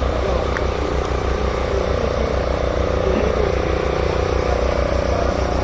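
An engine running steadily with a low, even throb.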